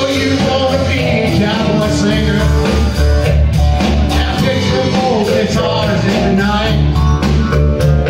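Live country-rock band playing: electric guitar over bass with a steady beat.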